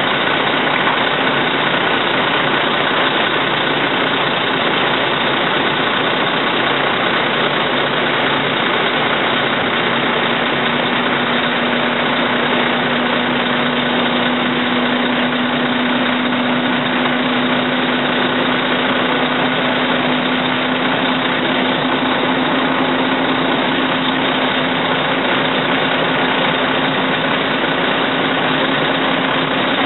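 Fire engine motor running steadily, with a steady hum that comes in about ten seconds in and rises slightly in pitch.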